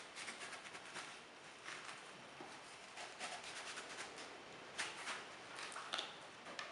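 A small knife scraping the seeds and soft pith out of a halved, peeled long gourd: faint, quick scratchy strokes, with a few louder scrapes near the end.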